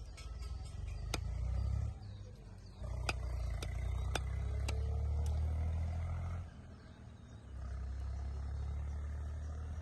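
Several sharp knocks of a knife chopping fish on a cutting surface, about one every half second in the first half. Under them a loud low rumble comes and goes, breaking off for about a second twice.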